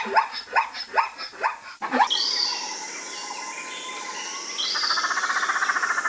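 A series of short rising animal calls, about three a second, then, after an abrupt cut, bird chirps with a rapid trilling call in the second half.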